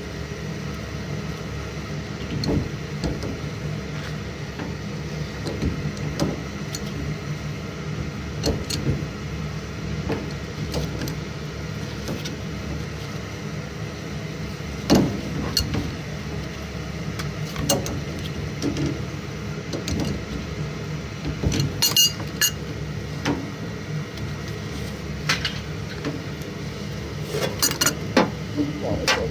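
Scattered light clicks, knocks and clatter of tools and fittings being handled over a steady low hum, with a sharper knock about halfway through and clusters of clicks near the end.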